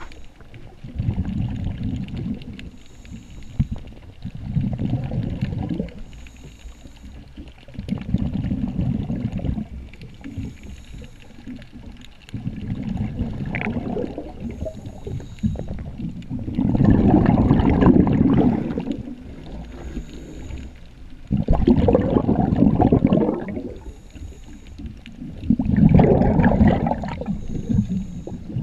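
Scuba diver breathing underwater: bursts of exhaled bubbles gurgle past the camera every few seconds, with a faint hiss between them.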